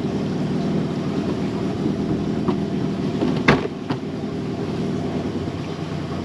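Small boat's outboard motor running steadily at low speed. One sharp knock about three and a half seconds in, with a lighter click just after.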